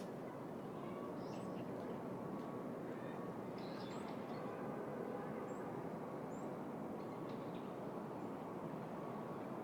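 City park ambience: a steady hum of distant city traffic, with short high bird chirps scattered through it.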